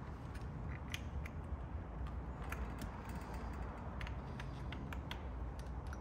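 Irregular light clicks and rattles of a 2021 Dodge Challenger's plastic center console bezel being handled while a wiring connector is plugged into it, over a steady low hum.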